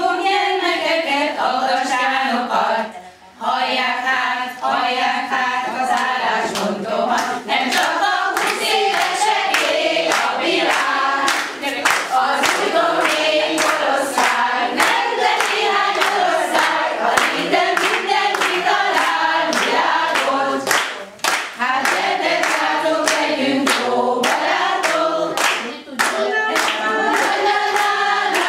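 A group of women singing a song together, with rhythmic hand-clapping joining in from about eight seconds in.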